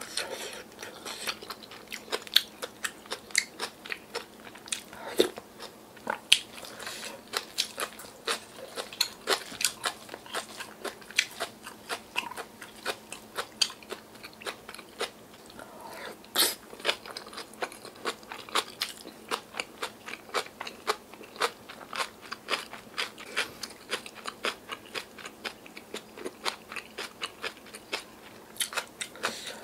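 Wet chewing, biting and crunching of bibimbap made with young-radish (yeolmu) kimchi and of doenjang stew: a dense run of short, sharp mouth clicks and crunches, several a second, with the odd spoon click against the bowls.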